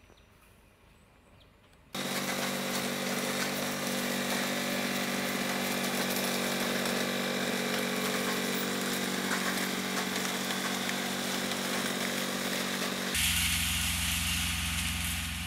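A tracked mini piling rig's engine comes in suddenly after about two seconds of quiet and runs steadily with an even mechanical hum. Near the end the sound changes to a deeper, heavier running with a fast low pulsing.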